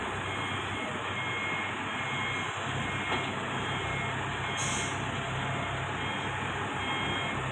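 Diesel engine of a W118 wheel loader running steadily as the machine is driven up onto a transport truck, with a few short high beeps from a warning alarm and a brief hiss about four and a half seconds in.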